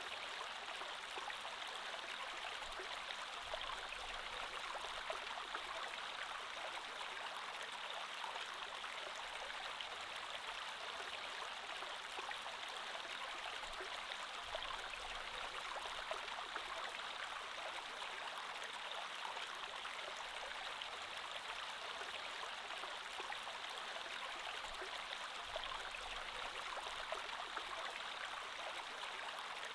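A creek flowing steadily over stones, an even rushing babble with fine splashing detail.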